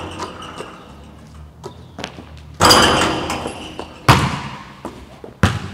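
Wall-mounted basketball backboard and rim being hit on repeated jumps: three sharp bangs about a second and a half apart, each ringing and echoing off the gym walls.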